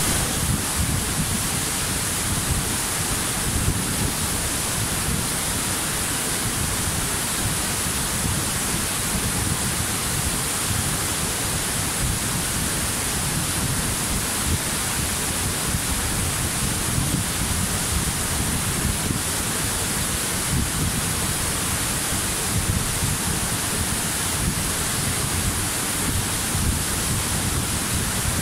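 Waterfall: a steady rush of falling water that stays even throughout, with a deep rumble underneath and a bright hiss on top.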